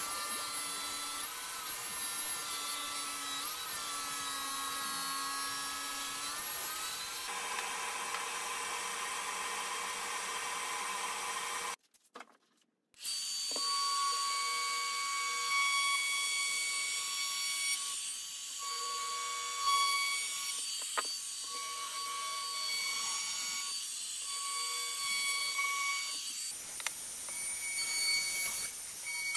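DeWalt compact table saw running and cutting a pine 2x4, a steady motor whine that shifts in tone about seven seconds in. After a break of about a second, a trim router with a roundover bit runs along the edges of a 2x4, its whine steady with short dips between passes.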